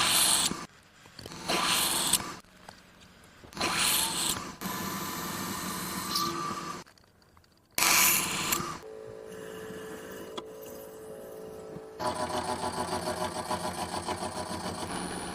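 Milling machine cutting steel, heard as a run of short clips that start and stop abruptly. A steady machine whine sits in the middle, and a quick, even pulsing cut runs through the last few seconds.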